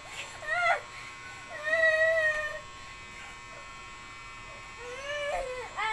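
A boy crying in high, drawn-out wails: a short rising cry just after the start, a longer held wail about two seconds in, and more wailing starting near the end.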